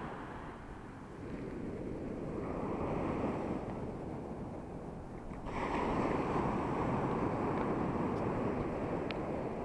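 Ocean surf breaking and washing up a sandy beach: a steady rush of water that swells as a wave crashes about halfway through.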